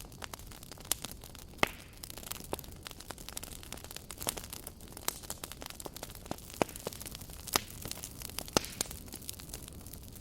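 Campfire crackling: irregular sharp pops and snaps of burning wood over a steady low hiss of the flames.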